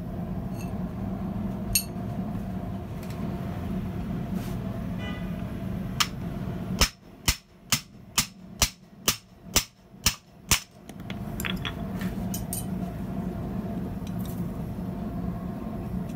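Hammer blows on a blacksmith's rotary hot shear set in the anvil's hardy hole, cutting a hot half-inch steel bar: a single sharp strike, then a quick run of about nine metallic blows, about two a second. The many blows are the sign that half-inch stock takes a decent amount of effort to shear. A steady hum runs underneath.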